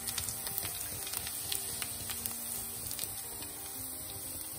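Garlic sizzling in hot sesame oil in a frying pan, a steady hiss with a few light crackles as it browns, under background music holding steady notes.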